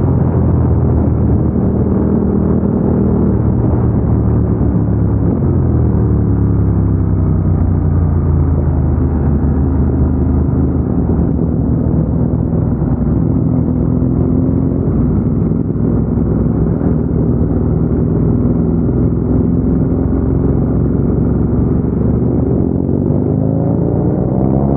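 Ducati Diavel 1260S's L-twin engine running under way on the road. The pitch shifts about five seconds in, then holds fairly steady, and near the end it rises sharply as the bike accelerates.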